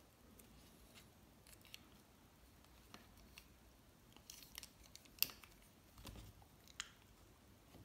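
Faint scattered clicks and taps from a felt-tip marker being handled and put away, the sharpest about five seconds in.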